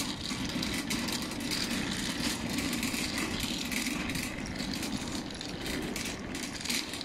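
Wire-basket shopping trolley rolling over rough asphalt, its wheels and metal frame giving a steady rattling rumble.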